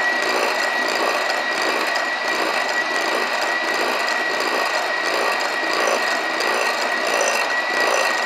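Handheld electric mixer running steadily with a high, even motor whine, its beaters whipping egg whites to stiff peaks in a bowl.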